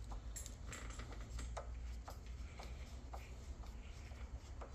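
Scattered light clicks and taps, about eight, of door-lock handle hardware being handled during installation, over a low steady hum.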